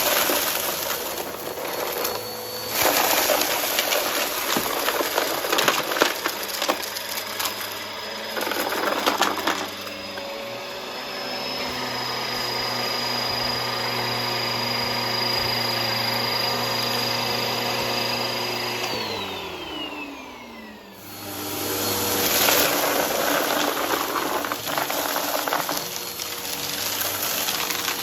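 Vacuum cleaner running and sucking up a pile of crunchy debris, with crackling and rattling as the pieces go up through the brushroll. About 19 seconds in the motor winds down in a falling whine, and about two seconds later it is running again with more crunching.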